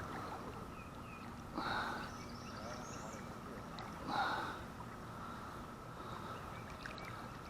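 River current running steadily, with two short louder swishes of water.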